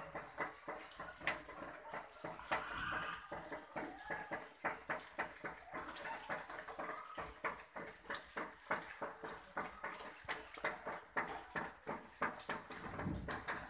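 Hailstones falling and striking the ground and nearby objects: dense, irregular sharp taps, several a second, over a steady wash like running water.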